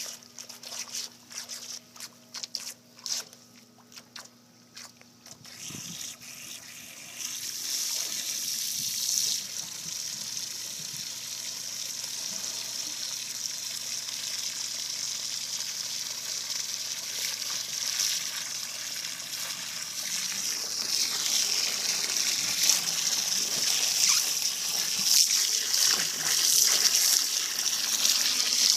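Water from a garden hose splashing into the water over a manatee's snout. It starts as broken spatters, becomes a steady rush of running water about seven seconds in, and grows louder near the end. A faint low hum sits underneath.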